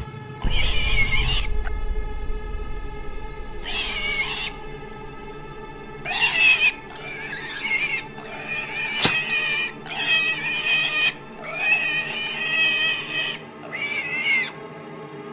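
About eight shrill, wavering cries, each lasting from half a second to nearly two seconds, over a steady, sustained music drone.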